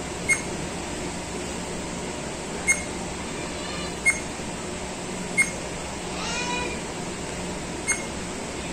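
Babysnail 4K action camera beeping as its menu buttons are pressed: five short, sharp beeps a second or two apart, over a steady room hum.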